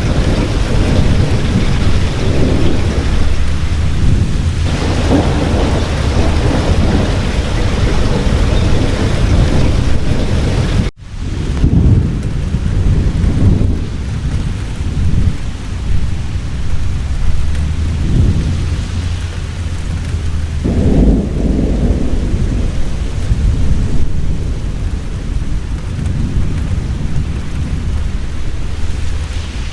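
Heavy rain falling steadily, with thunder rumbling low and swelling several times. The sound cuts out for an instant about eleven seconds in.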